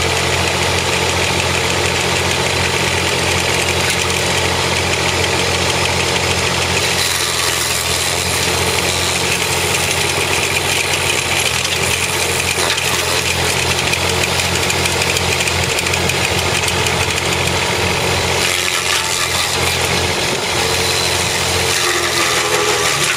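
Kubota L275 diesel tractor running under load on the PTO, driving a homemade stump grinder whose cutting wheel, turned through a welded BMW differential, grinds into a tree stump with a steady, rough hiss of chips over the engine hum. The cutting noise grows brighter about seven seconds in.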